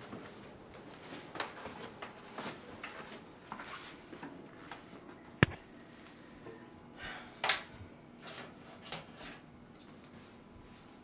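Quiet household handling sounds: scattered light knocks, clicks and rustles as objects are moved about. There is one sharp click about five and a half seconds in, and a short rustle a couple of seconds later.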